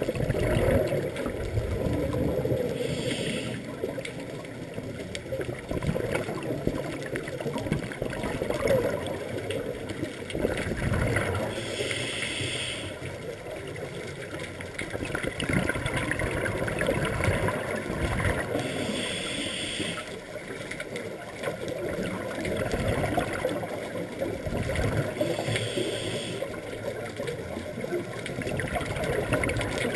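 Scuba diver breathing through a regulator underwater. Four times, a short hiss of inhalation lasts about a second, and between them comes the bubbling gurgle of exhaled air.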